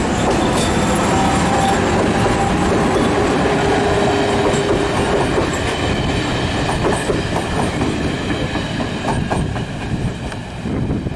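MÁV class 414 electric multiple unit running past, its wheels clacking over rail joints, with a steady tone in the first half of the passage.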